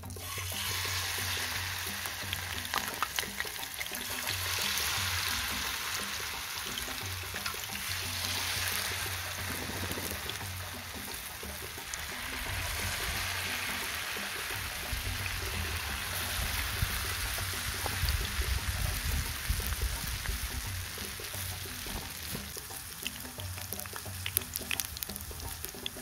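Battered durian flowers deep-frying in hot oil in a wok: a steady sizzle dense with small crackling pops, starting sharply as the first battered flower drops in. Background music with a low beat plays underneath.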